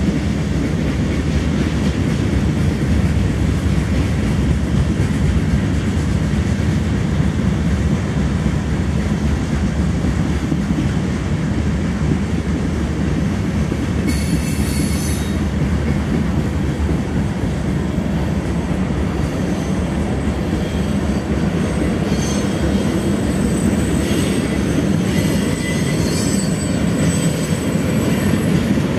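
CSX freight train cars rolling past with a steady low rumble and clatter of wheels on rail. High-pitched wheel squeals come in briefly about halfway through and again, off and on, in the last third.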